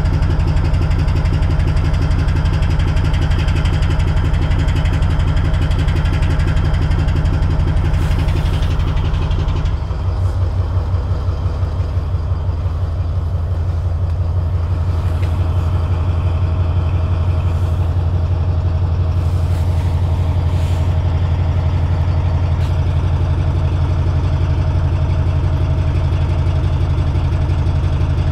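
Class 70 diesel locomotive's GE V16 engine idling with a steady low throb; about ten seconds in the note shifts and the lowest throb grows stronger.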